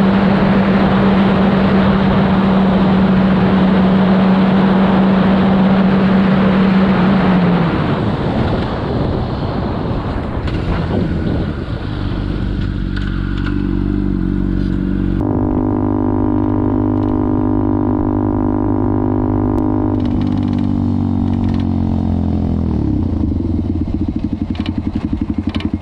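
Honda CBR600RR inline-four sport bike running at steady speed under heavy wind noise, then easing off. About fifteen seconds in, a different motorcycle's engine takes over, running steadily; its pitch falls as it slows about twenty seconds in, then holds steady.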